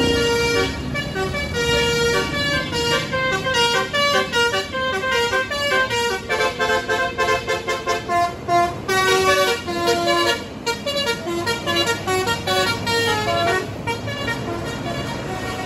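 Tour bus 'telolet basuri' melodic air horn playing a fast tune of short, changing notes over the bus's running noise. The tune dies away a couple of seconds before the end, leaving the vehicle's noise.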